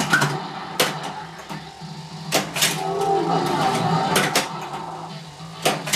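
Data East Star Wars pinball machine in play: several sharp clacks of flippers and coils knocking the ball around, over the machine's electronic sound effects and a low steady hum. The game is running normally with its repaired CPU board.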